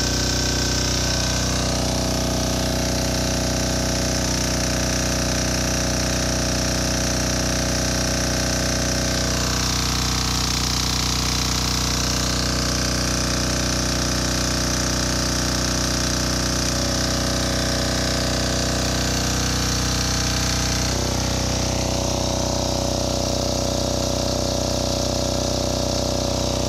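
Yanmar L48AE single-cylinder air-cooled diesel engine running a generator steadily under electrical load, its tone shifting slightly about ten and twenty seconds in.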